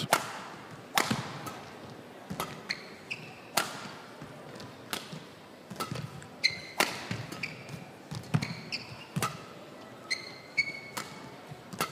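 Badminton rally: rackets strike the shuttlecock with sharp smacks about every second and a half, and court shoes squeak briefly on the floor between shots.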